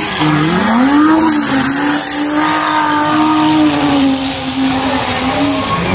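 Off-road race vehicle's engine revving up sharply in the first second, then held at high revs before easing off near the end.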